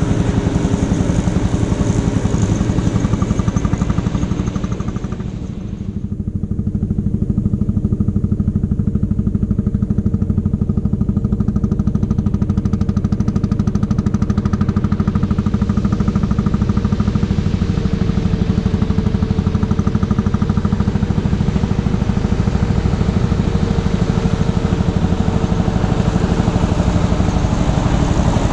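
Lanz Bulldog D6516's single-cylinder two-stroke hot-bulb engine running under load while mulching a pasture, a rapid, even beat. The sound grows duller about a fifth of the way in as the tractor moves away, then gradually comes back closer towards the end.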